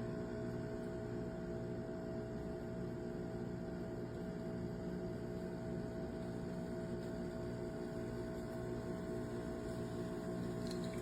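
De'Longhi Dedica Duo espresso machine running with a steady electric hum that does not change.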